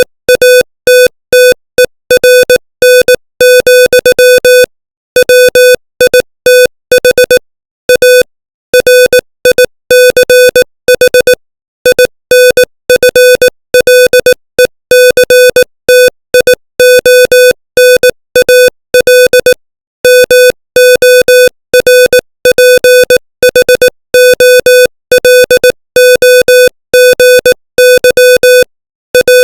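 Morse code sent by machine at 18 words per minute: a single steady-pitched electronic beep keyed on and off in short dots and longer dashes, with brief pauses between letters and longer ones between words, spelling out English plain text.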